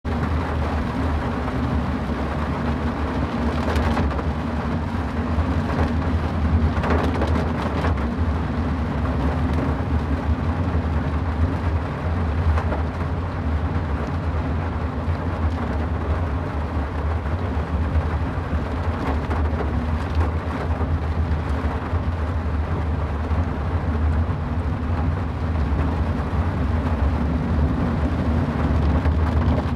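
A car driving in the rain: a steady low rumble of road and engine under an even hiss of rain and wet tyres.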